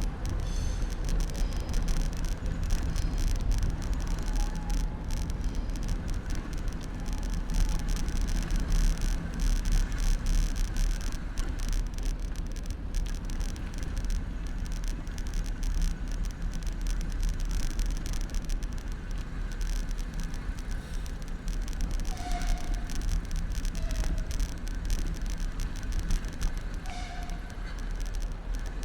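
Riding noise picked up by a handlebar-mounted camera on a moving bicycle: a steady low rumble of wind and tyres on the road, with a dense crackle of small rattles and knocks from the bumpy surface. A few short high chirps come in near the end.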